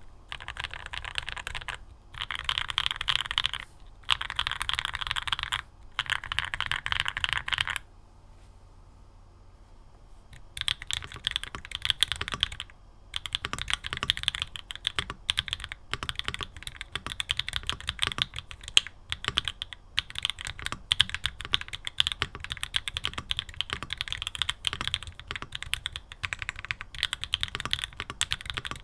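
Mode Tempo 60% mechanical keyboard with Mode keycaps and Obscura switches being typed on. Fast bursts of typing stop about 8 seconds in. After a pause of about two seconds, typing starts again as a looser run of separate keystrokes. The first part is with all foams installed; after the pause it is with only plate and case foam.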